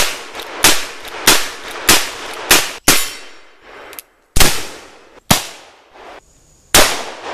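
Black powder cap-and-ball revolvers firing: a string of sharp gunshots, each ringing out briefly, about one every half second at first, then three more spaced shots. The shots come from separate clips cut together, with brief dead-silent breaks between them.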